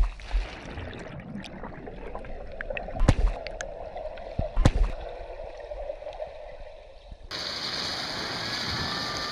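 Underwater recording of a swimmer in a pool: muffled bubbling and gurgling water with a few sharp knocks. About seven seconds in it cuts abruptly to an outdoor sound with a steady high hiss.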